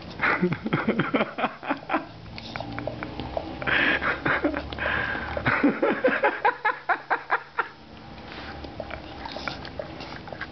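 Beagle licking and smacking its lips, working sticky dulce de leche off its nose and mouth: rapid wet clicks of tongue and lips, with a few breathy puffs around the middle. It goes quieter for the last couple of seconds.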